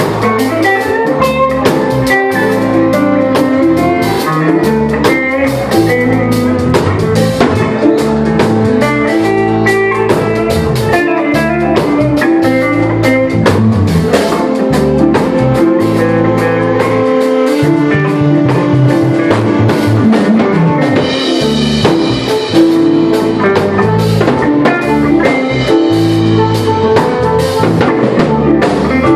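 A live jazz-fusion band playing, with guitar and drum kit.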